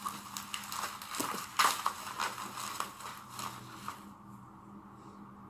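Bubble-wrap packaging being handled and unwrapped: plastic crinkling and rustling with scattered small clicks and taps, dying down about four seconds in.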